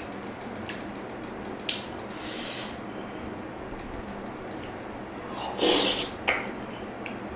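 Close-miked eating and breathing noises: a sharp mouth click, a short hissing breath about two seconds in, and a louder breathy burst with a click just after it near six seconds, over a steady background hiss.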